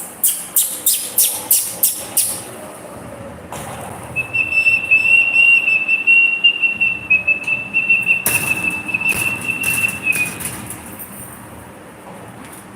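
A quick run of about eight sharp clicks, then one long, steady high whistled note, slightly wavering, held for about six seconds before it fades.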